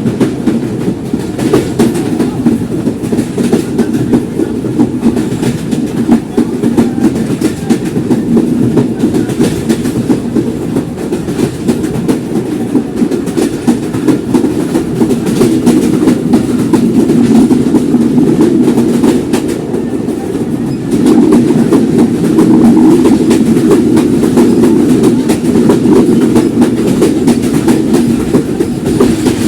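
Simanta Express passenger train's wheels running on the track: a steady rumble with rapid clicks and clacks from the rails. It grows louder about two-thirds of the way through.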